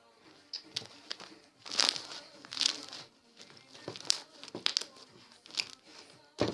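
Hands stretching and squeezing a sticky homemade slime, making irregular crackles, pops and short squelches.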